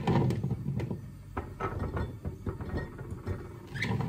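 Hands handling green plums in a bowl and dropping them into a glass jar: a few scattered light knocks and clinks over a low rustle of handling.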